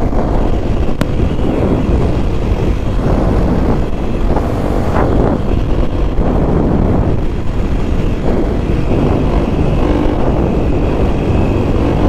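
Kawasaki KLX300SM single-cylinder engine running under way, heavily mixed with wind rushing over the microphone.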